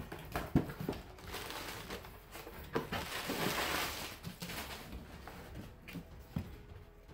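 Cardboard shipping box being opened by hand: a sharp knock about half a second in, then a few seconds of cardboard scraping and sliding, with scattered small taps.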